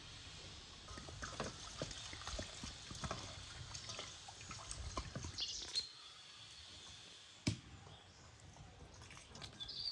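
Water poured from a clay jug into a steel bowl, splashing and pattering irregularly as raw meat is rinsed by hand in it. A single sharp knock comes about three-quarters of the way through.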